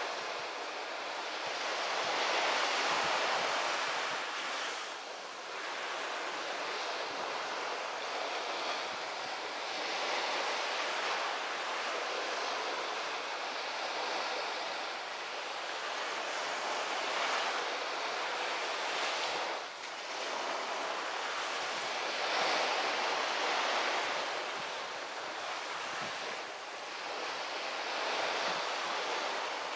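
Steady outdoor rushing noise with no distinct engine or voice, swelling and fading every few seconds.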